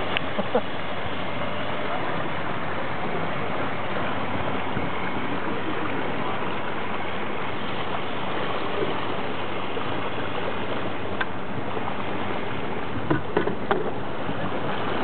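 Steady rush of water and wind from a small metal boat under way, the hull and wake churning the water, with a few light knocks near the end.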